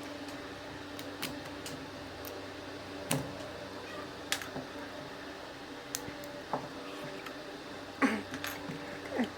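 Scattered light clicks and taps of small plastic and metal phone parts being handled during reassembly, over a steady mechanical hum.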